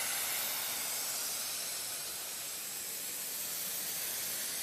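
Steady hiss of compressed CO₂ gas escaping through a valve as the extraction system is depressurised.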